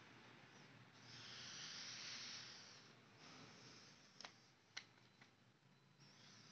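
Near silence with faint handling noise: a soft breath-like hiss, then a few light clicks as small plastic capsule bottles are touched.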